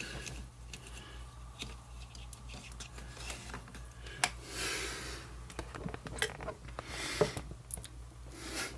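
Light scattered clicks and rustles of small plastic parts and cable being handled, with a couple of soft hissing swells, over a steady low hum.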